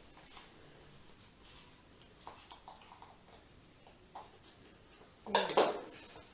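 Scissors cutting out a small paper square: faint snips and paper rustling, with one louder, brief burst of noise a little over five seconds in.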